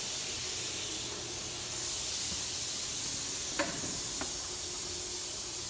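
Steady hiss of background noise around a powered-up machining center, with two light clicks about half a second apart a little past halfway.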